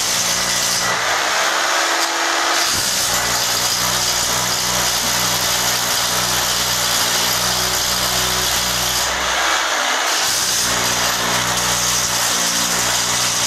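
Corded electric drill running continuously, boring up through a metal ceiling channel to make holes for the fixings of a gypsum-board ceiling frame. Its sound changes briefly twice, about one to three seconds in and again around ten seconds in.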